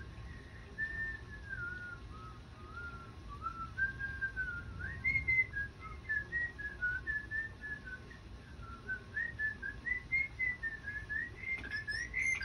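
A person whistling a wandering tune in short gliding notes, getting louder near the end.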